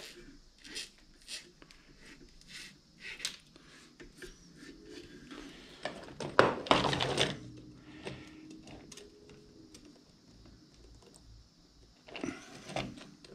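Light clicks and rattles of steel cable and small fittings being handled on a wooden workbench, with a louder clatter of knocks about six to seven seconds in as the black pedal track assembly is picked up and moved.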